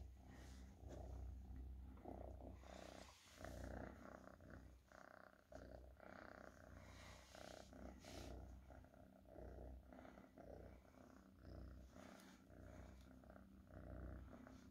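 Domestic cat purring in a steady low rumble while being stroked, with a few brief soft rustles.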